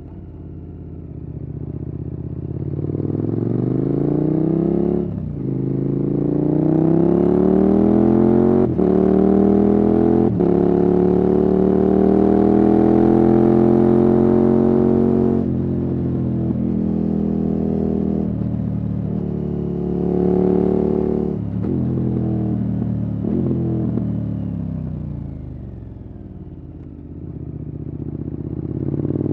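KTM 1290 Super Adventure S's V-twin engine through an aftermarket Wings exhaust, pulling hard under acceleration with a brief break about five seconds in, revs climbing and held high, then dropping off around the middle. The throttle is rolled on and off a few times, the revs fall away near the end and then climb again.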